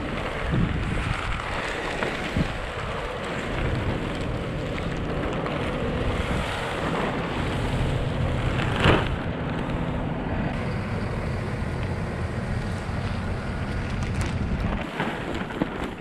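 Wind buffeting the microphone over a steady low engine hum, with one sharp snap about nine seconds in.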